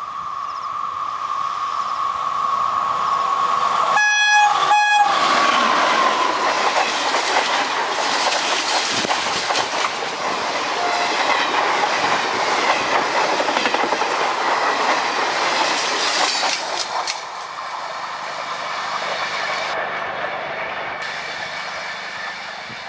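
WAP4 electric locomotive with a 14-coach passenger train passing at about 106 km/h. A steady high whine comes in on the approach and drops in pitch as the locomotive passes. Two short horn blasts sound about four seconds in, then a loud rush of wheels clattering over the rail joints as the coaches go by, easing off near the end as the train recedes.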